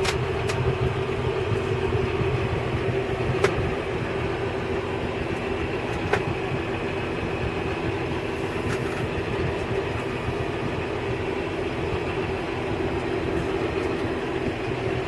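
John Deere 6830 Premium tractor's six-cylinder diesel engine running steadily, heard from inside the closed cab, with a few sharp knocks from the cab.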